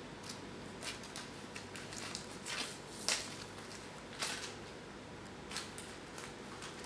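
Kitten playing with a crumpled paper receipt: short, irregular rustles and crinkles as it bats and bites at the paper, the loudest about three seconds in.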